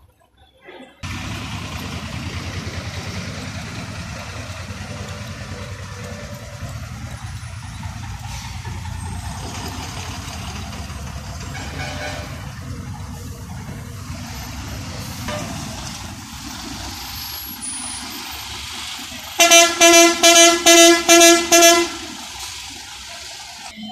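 Bus engines running with a steady low rumble; about nineteen seconds in, a bus horn sounds loudly in a rapid string of about eight short toots lasting a couple of seconds.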